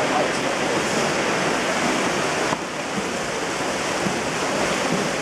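Water splashing from water polo players swimming hard down the pool, a steady rushing noise with no single strikes.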